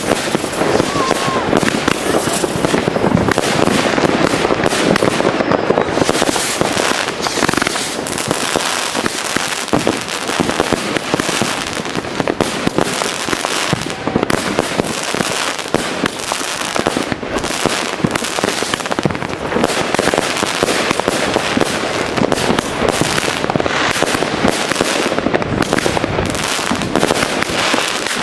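Consumer firework batteries (cakes) from PGE, Pyrostar and Helios fired in a chain: a dense, unbroken barrage of rapid, overlapping bangs with no pause.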